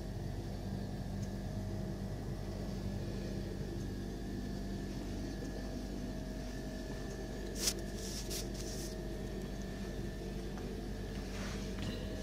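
Steady mechanical hum of appliances with a few fixed tones in it, with a brief cluster of sharp clicks about eight seconds in.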